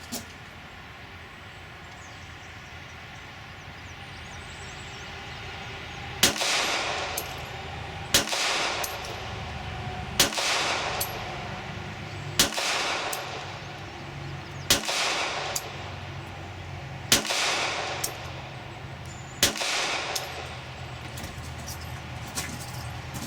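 Glock 26 9mm pistol fired seven times, about two seconds apart, each shot sharp and followed by a ringing echo.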